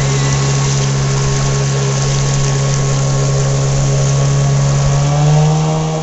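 A small motorboat's engine running steadily at speed, with water rushing along the hull. The engine pitch rises a little about five seconds in, then the sound fades out near the end.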